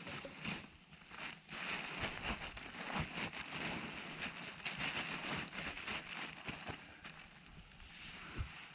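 Rustling and crinkling of camping gear being handled and packed, with many small crackles, quieter near the end.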